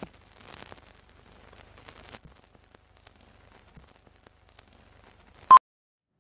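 Old-film countdown leader sound effect: faint projector-style crackle and scattered pops, then a single short beep about five and a half seconds in.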